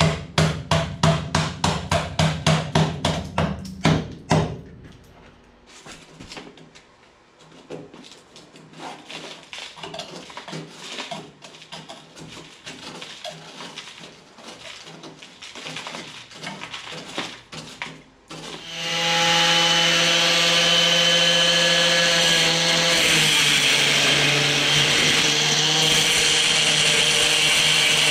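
Rapid, evenly spaced metal knocks at the start, then irregular scraping and tapping on the truck's rusted steel dump box side. About two-thirds of the way in, an angle grinder starts and runs steadily as it grinds the steel, its pitch dipping slightly as it bites.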